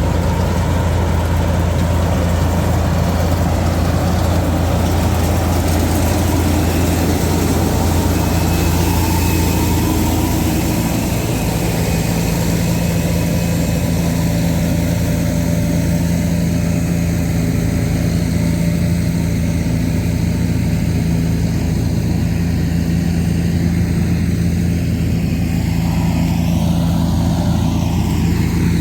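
Engine of a Super Standard S50 mini combine harvester running steadily. About ten seconds in, the low drone gives way to a higher steady hum.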